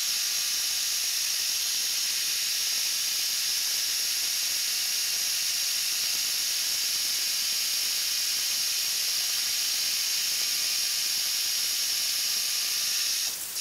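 Milling machine spindle driving a 5/16-inch twist drill through 316 stainless steel plate: a steady high hiss with a faint whine, cutting off suddenly near the end.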